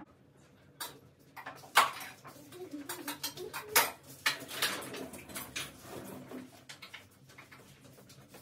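Clatter of dishes, pots and metal utensils while food is served at the kitchen stove: a string of irregular clinks and knocks, the sharpest about two seconds in.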